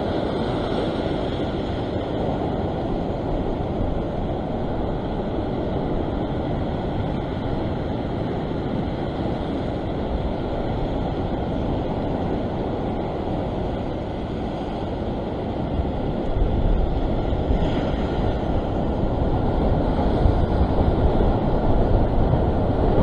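Ocean surf breaking and washing over a rock ledge, a steady rushing noise that grows louder and deeper for the last several seconds as bigger swell comes in.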